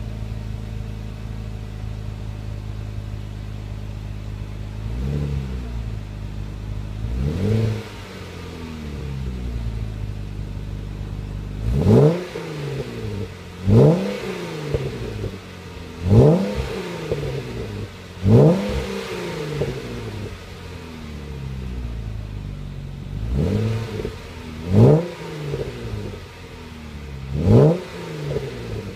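2013 Jeep Wrangler Unlimited's 3.6-litre V6 exhaust, running through a Magnaflow 12226 muffler with a Dynomax 24125 in place of the factory resonator. It idles steadily with a couple of light blips, then from about twelve seconds in is free-revved in short sharp stabs about two seconds apart, each rising and falling quickly back to idle.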